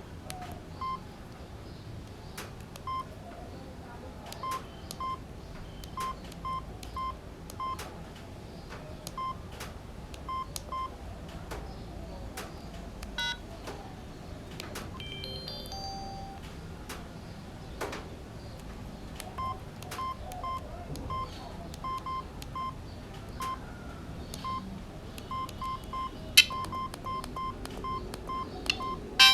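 Samsung SGH-T509 mobile phone keypad beeping: short, identical beeps, one per key press, coming in irregular runs with faint button clicks between them. About halfway through, a short rising run of notes sounds.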